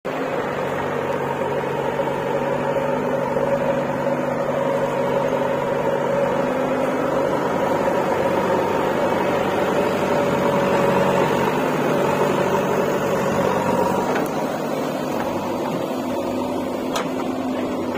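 JCB 3DX backhoe loader's diesel engine running steadily, growing slightly louder in the middle and easing off about three-quarters of the way through, with one sharp click near the end.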